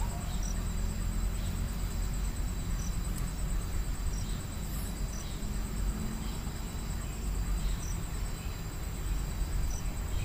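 Insects trilling steadily, a high, finely pulsing drone, with short high chirps every second or two over a low rumble.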